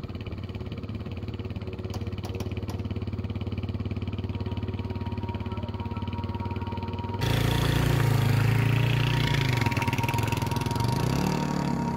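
Small dual-sport dirt bike engine idling steadily. About seven seconds in it gets suddenly louder and its pitch rises and falls as it is revved.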